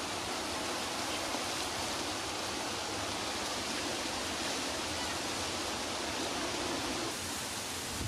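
Wind blowing through tree leaves and palm fronds, a steady even rush.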